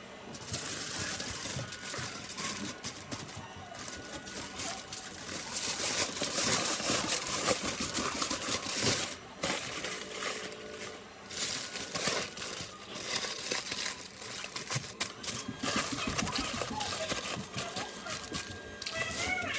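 Food frying in hot oil: a dense, continuous crackling sizzle full of quick pops, loudest a few seconds into the sound and briefly dropping away twice.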